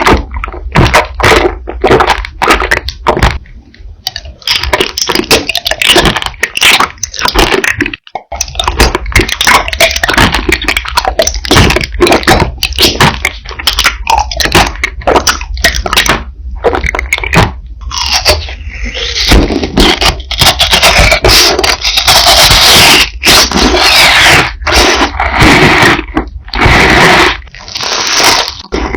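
Close-miked eating: loud, irregular crunching and chewing with scraping, over a steady low hum.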